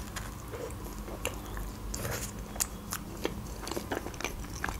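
A person biting into a slice of homemade pizza and chewing it close to the microphone, with a scattered series of small crunchy clicks.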